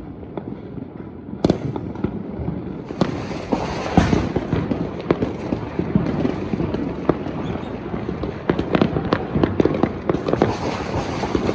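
Many fireworks and firecrackers going off at once: a dense crackle of sharp bangs, near and distant, that thickens about three seconds in.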